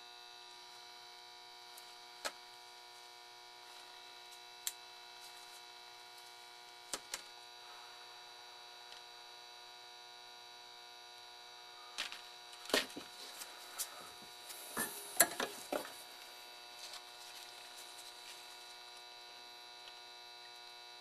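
Steady low electrical mains hum, with occasional light clicks and taps from a circuit board and small hand tools being handled during soldering. A cluster of louder, sharper clicks comes about twelve to sixteen seconds in.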